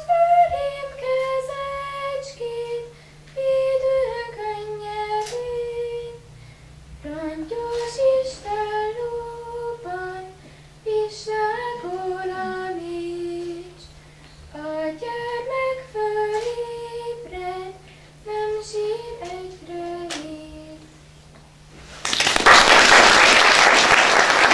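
A solo female voice sings a melody in phrases, with no accompaniment heard. The song ends about 22 seconds in and audience applause breaks out.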